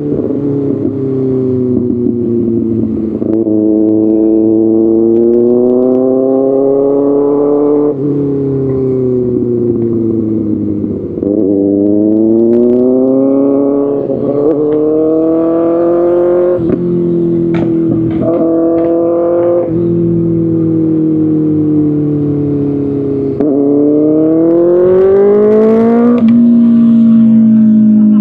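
Kawasaki ZX-6R inline-four sport bike through an Arrow Pro Race exhaust, being ridden hard: engine pitch climbs under acceleration, drops sharply at each gear change, and climbs again several times. The pitch eases down slowly at the start.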